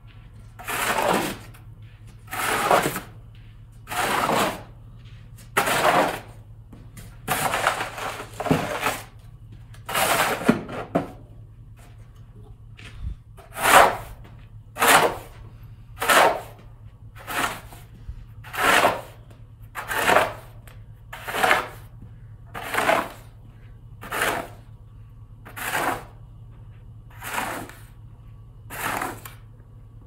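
Snow shovel scraping along the pavement as it pushes snow, in regular strokes about every second and a half.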